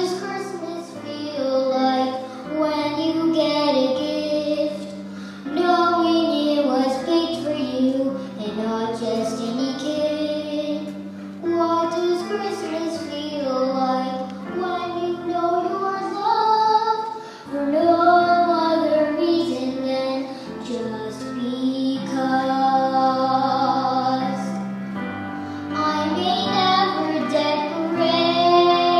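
A young girl singing a slow song solo over instrumental accompaniment, holding long notes.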